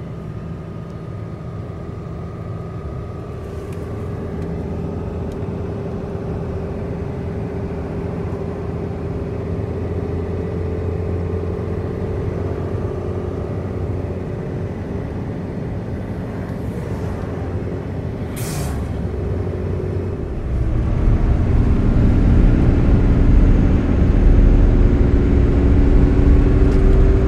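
Highway road noise heard from inside a moving vehicle's cabin: a steady low rumble of tyres and engine, with a brief hiss about two-thirds of the way through. The rumble turns markedly louder and deeper about three-quarters of the way in.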